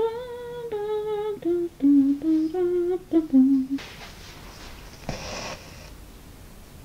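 A voice humming a slow tune in held, stepwise notes, cut off abruptly about four seconds in. After it comes a soft swish of wool yarn drawn through needlepoint canvas.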